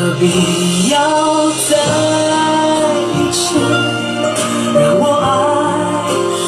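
Background music: a Mandarin pop song with sustained instrumental notes and a singing voice.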